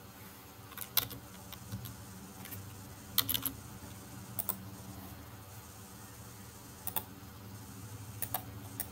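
Computer mouse clicks and a short run of keyboard keystrokes: sharp single clicks scattered through, with a quick cluster about three seconds in, over a faint steady low hum.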